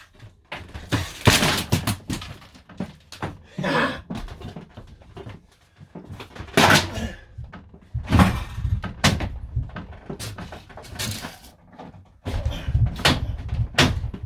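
Irregular bangs, thuds and cracks, with short scraping passages, as the camper van's interior fittings are wrenched and knocked loose by force; the heaviest blows come in clusters about a second in, around seven to nine seconds in, and near the end.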